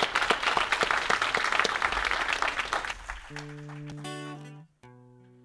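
Audience applauding, dying away about three seconds in; then an acoustic guitar plays held chords, each ringing for about a second with short breaks between them.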